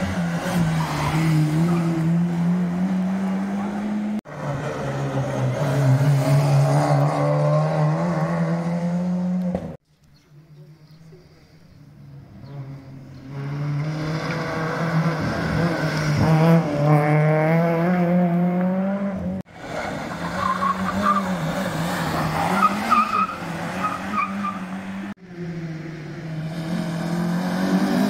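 Rally cars racing past one after another, engines revving and climbing in pitch as they accelerate, with abrupt cuts between passes and one car building up from faint to loud partway through.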